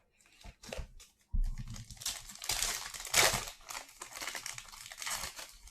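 Foil wrapper of a trading-card hobby pack being torn open and crinkled by hand, in irregular crackling bursts that grow louder about a second and a half in.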